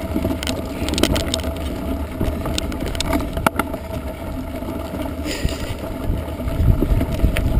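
Mountain bike climbing a steep, rough gravel-and-grass track: knobby tyres rumbling over loose stones, with the bike rattling and giving off scattered sharp clicks and knocks.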